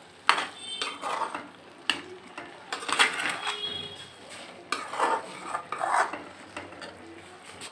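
Perforated steel ladle scraping and clinking against a steel kadai as potatoes and peas are stirred and roasted. The strokes come irregularly, a few with a brief metallic ring.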